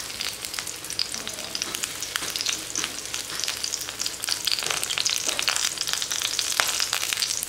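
Semolina and curd uttapam batter sizzling in a hot oiled pan, with a steady hiss full of small crackles and pops.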